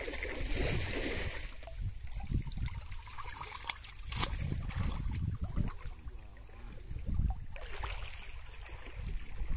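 Muddy shallow water sloshing and splashing as men wade through it and drag a hand fishing net, with a burst of splashing in the first second or so and a couple of sharper splashes later.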